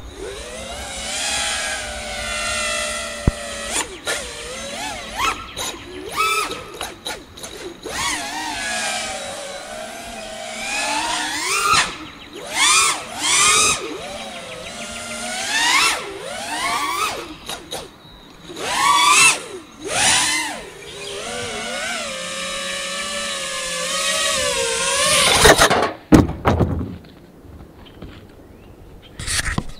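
FPV freestyle quadcopter's four Ethix Stout v3 brushless motors and props whining, the pitch surging up and dropping back again and again with the throttle punches. It is heard from on board, and the whine stops about 26 seconds in.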